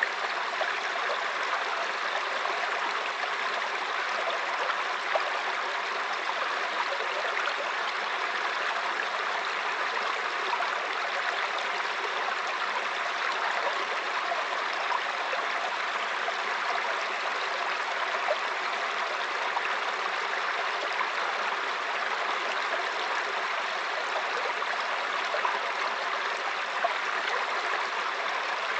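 Mountain stream flowing and babbling over rocks: a steady rush of water with small splashes and gurgles.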